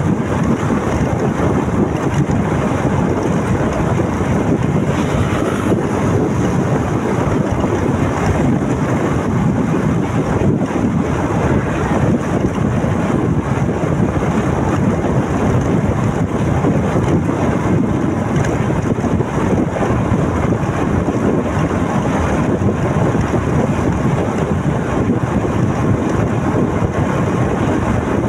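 Steady wind noise on the microphone of a moving motorcycle, with the bike's engine and road noise underneath.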